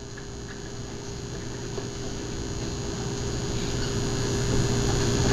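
Steady room hum with hiss, slowly growing louder, and a few faint clicks.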